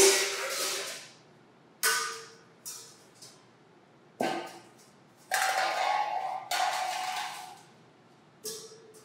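Stainless steel dog bowls clanging and clattering as they are tossed down, several separate sudden crashes each with a metallic ring that fades; one rings on for about two seconds midway.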